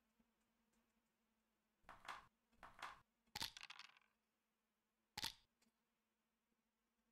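Online backgammon game sound effects: two sharp clicks as checkers are placed, then a quick rattle of clicks as dice are rolled, and one more click a second later, over a faint low hum.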